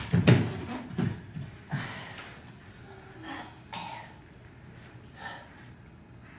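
A person coughing a few times, each cough fainter than the last, then a quiet room with a few soft short sounds.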